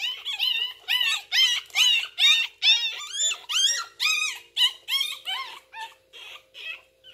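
A dog whimpering in quick, repeated high-pitched whines, about three a second, growing fainter near the end.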